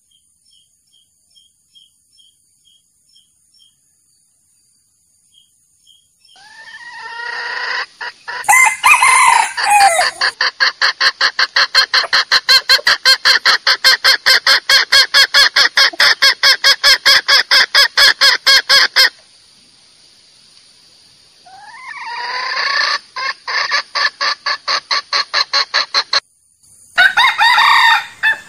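Male red junglefowl calling: faint clucks at first, then loud crowing that runs into long series of rapid clucks, about four to five a second, twice, with another crow near the end. A rooster call of the kind used as a decoy to lure wild junglefowl into traps.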